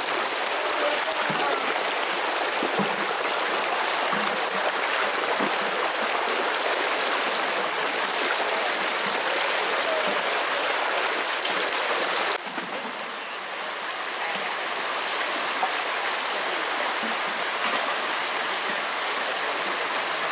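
Shallow rocky stream rushing over stones, a steady hiss of flowing water. About twelve seconds in the sound changes abruptly, a little quieter, then builds back up.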